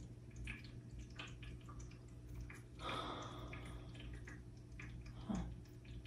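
Quiet room tone with a steady low hum and a few faint ticks, and a soft breathy swell about three seconds in.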